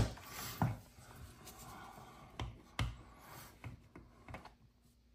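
Hard plastic action-figure glider being handled and worked against its stand piece, giving a few short plastic clicks with light rubbing between them. The sharpest click comes right at the start, and fainter ticks follow about four seconds in.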